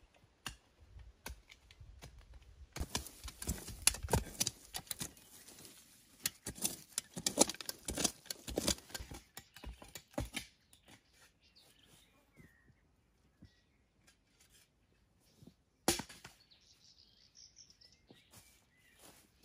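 Crackling, snapping and rustling of dry twigs, brush and leaf litter being pushed through and handled in undergrowth, densest for several seconds, then a few scattered snaps. Faint bird chirps come in near the end.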